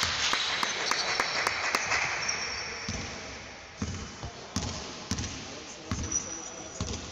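Basketball game on a hardwood indoor court: sharp knocks over the first few seconds, then a basketball bouncing with dull thuds about every half second from about four seconds in. The hall echoes.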